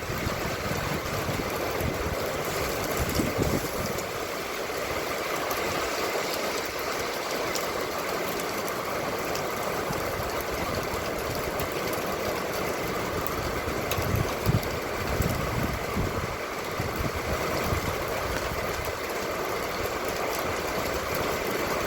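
Steady noise of an idling vehicle engine with an even hiss over it, and a few low rumbles, the largest about two-thirds of the way through.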